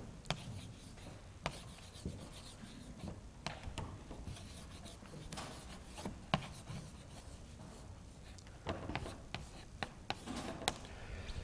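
Chalk writing on a blackboard: faint scratching broken by many short, sharp taps of the chalk on the board, busiest near the end.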